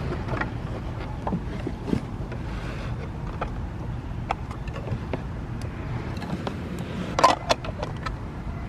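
Steady low rumble of wind on the microphone, with scattered light clicks and taps and a quick run of sharper clicks about seven seconds in.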